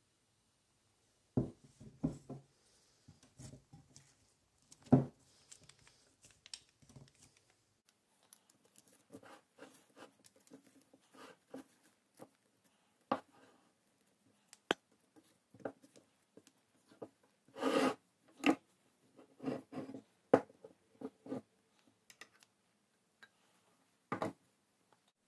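Wooden spoon stirring and scraping thick play dough in a bowl, with irregular knocks and scrapes of the spoon against the bowl, and a single knock near the end.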